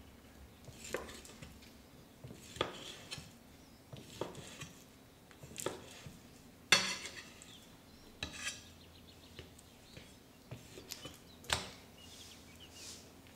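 A kitchen knife cutting raw chicken breast into cubes on a wooden cutting board: the blade knocks on the board every second or two, with the sharpest knock about halfway through.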